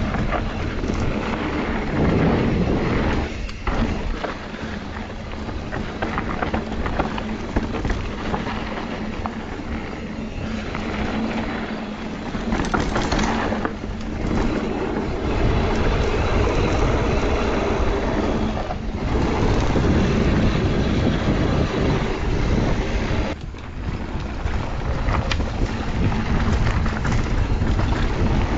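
Wind rushing over the rider's camera microphone and tyres rumbling over a dirt trail as a mountain bike rides downhill at speed. The noise drops briefly a few times.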